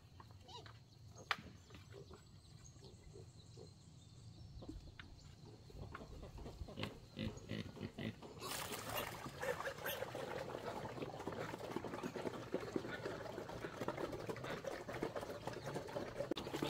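Pigs grunting, with scattered clicks at first, and a dense, louder noise from about eight seconds in.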